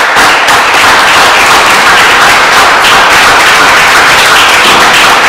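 Audience applauding, loud and steady, with dense overlapping hand claps.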